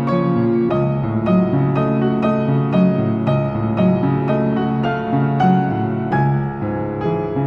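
Background music: gentle piano with notes struck about twice a second over sustained lower chords.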